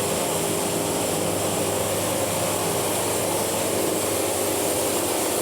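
Wood-Mizer portable band sawmill running steadily, its engine and band blade making an even machine noise with a faint steady hum.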